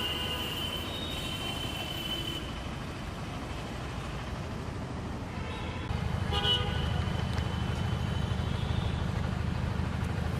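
Outdoor street background with traffic noise; a vehicle horn holds a steady high toot for the first two seconds or so. About six seconds in, a louder low rumble takes over.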